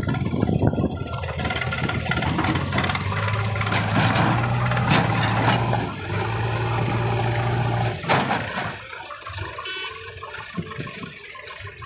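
Diesel engines of a red farm tractor pushing soil with a front dozer blade and of a JCB 3DX backhoe loader, running steadily under load. The engine sound drops away about eight seconds in, leaving quieter machine noise.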